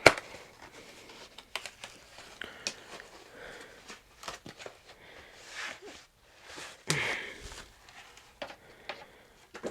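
A keyboard's cardboard box and packaging being opened by hand: scattered clicks and scrapes with short bursts of crinkling and rustling. There is a sharp knock at the start and a louder rustle about seven seconds in.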